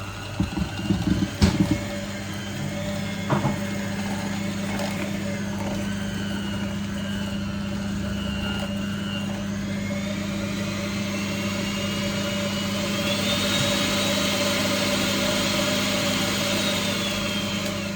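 Electric kitchen mixer motor running steadily, its whine wandering in pitch and rising about three quarters of the way through. A few knocks in the first couple of seconds.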